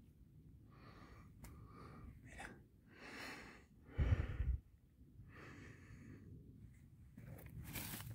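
A person breathing softly and close to the microphone, several separate breaths, with a loud low thump about four seconds in. Dry pine needles crackle and rustle near the end as a hand brushes the forest floor.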